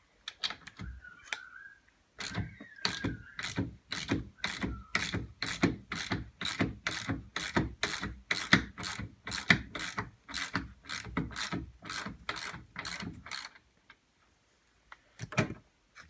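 Ratchet spanner with a 17 mm socket clicking steadily, about three clicks a second, as it undoes the last seatbelt anchor bolt. The clicking stops a couple of seconds before the end, with a few last clicks after.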